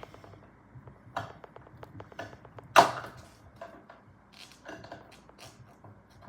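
Swiss Army knife can opener blade levering its way around the lid of a steel food can: a run of small metal clicks and scrapes, with two sharp crunches as the blade bites through the tin, the louder one about three seconds in.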